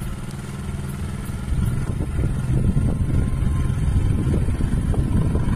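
Motorcycle engine running with its exhaust blowing into a balloon held over the silencer. It is revved harder about one and a half seconds in and runs louder and rougher from there.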